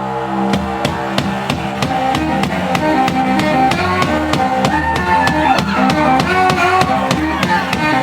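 Live band music: a held chord, then about half a second in a drum kit comes in with a steady beat under low bass notes and a moving melody.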